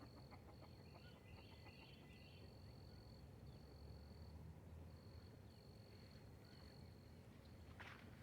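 Quiet outdoor ambience carrying an insect's steady high-pitched trill that breaks off for short gaps, with a brief burst of noise near the end.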